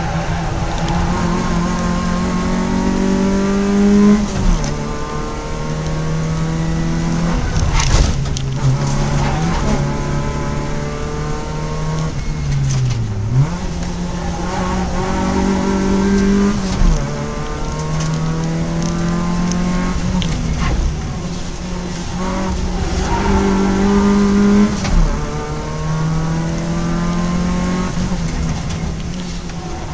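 Citroën Saxo competition car's four-cylinder engine heard from inside the stripped cabin, revving up under hard acceleration and dropping back at each gear change about every four seconds, with a deeper fall in revs midway as it slows for a corner. A few sharp knocks ring through the bare shell.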